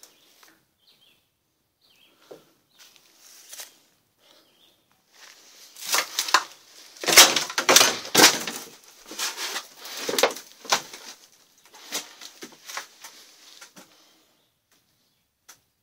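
Close rustling and crackling: a dense run of crunches and clicks, loudest about seven to eight seconds in, tapering off to scattered ticks after about fourteen seconds.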